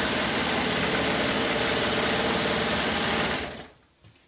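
Kenmore 158.17501 zig-zag sewing machine running steadily, stitching a buttonhole with its buttonhole cam attachment. The motor winds down and stops about three and a half seconds in.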